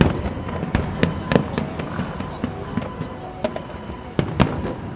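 Fireworks display: aerial shells bursting in a rapid, irregular string of bangs and crackles, with the loudest bang about four seconds in.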